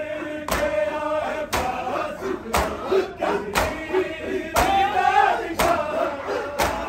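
Men's voices chanting a noha, a Muharram lament, together, with a sharp beat about once a second from the mourners' chest-beating (matam).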